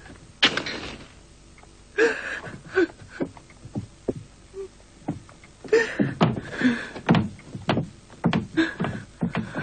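A woman sobbing in broken cries while footsteps and knocks sound on wooden boards and a door.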